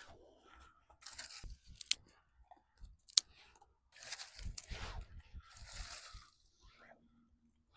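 Irregular crunching and rustling of dry forest debris being handled, with a few sharp snaps.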